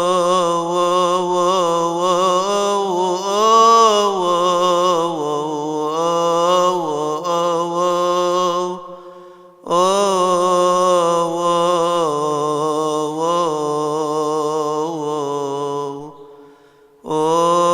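Solo male voice chanting a Coptic Orthodox hymn unaccompanied, in long melismatic phrases with much ornamenting of each note. It breaks off for a breath near the middle and again near the end before starting a new phrase.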